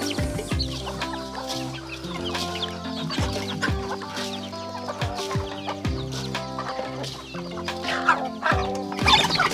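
Chickens clucking over background music with a steady beat; the calls get louder and busier near the end.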